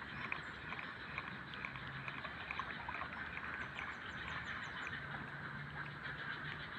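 Steady chorus of insects and frogs in an open rice field, full of small chirping ticks, with a faint low hum coming and going.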